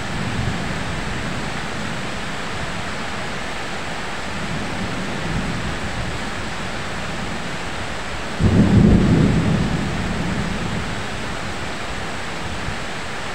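Heavy rain pouring steadily, with a loud, sudden rumble of thunder about eight seconds in that dies away over a second or two.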